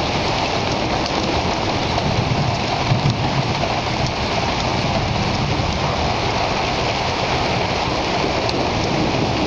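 Steady rain falling, an even wash of noise with no breaks.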